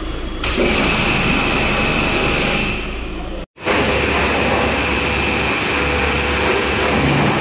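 High-pressure washer spraying water on a car: a steady, loud hiss with a thin high whine. It drops out for an instant about three and a half seconds in, then resumes.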